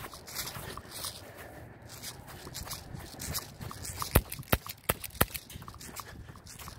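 Four sharp shots from an HK USP airsoft pistol, fired in quick succession about a third of a second apart, about four seconds in. Before them, footsteps rustle through dry grass.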